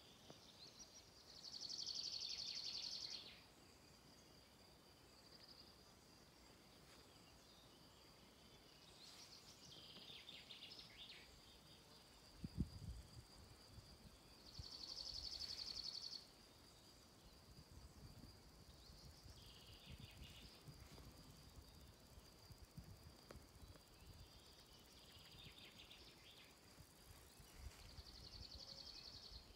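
Quiet countryside ambience of insects: a faint, steady, high drone throughout, with a louder, high, pulsed buzz of about two seconds that comes three times, roughly thirteen seconds apart, and fainter short chirps in between. A brief low thump sounds near the middle.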